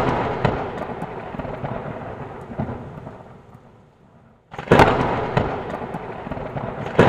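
Explosion sound effects: a sudden loud blast that rumbles and fades away over about four seconds, then a second blast about four and a half seconds in that fades the same way, with another starting right at the end.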